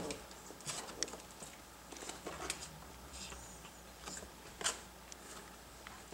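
Faint scattered clicks and soft rustles from a pile of puppies stirring and shifting against each other on a raised cot.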